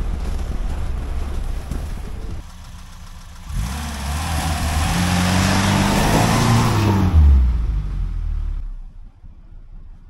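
Lada Niva VAZ-21213's four-cylinder engine pulling under throttle as the car drives past through snow, its pitch rising and bending, with a hiss of tyres churning snow; it is loudest about seven seconds in and fades away soon after. Before that, engine noise and wind buffeting heard from a camera on the moving car.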